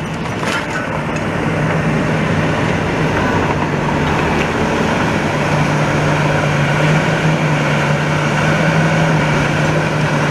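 A large diesel engine running steadily with a low, even hum that grows a little louder partway through, typical of heavy plant working on a demolition site.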